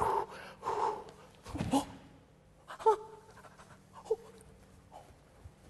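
A man panting hard from exertion, with loud breathy puffs for about two seconds, then a few short, quieter vocal noises.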